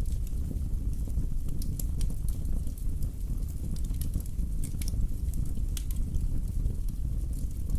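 Wood fire burning in a fireplace, with irregular sharp pops and crackles over a steady low rumble.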